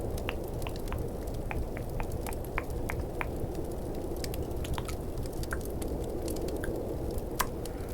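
Close-miked tongue clicks, short wet clicks coming irregularly several times a second, over a steady rushing ambience of snowstorm wind and fireplace crackle.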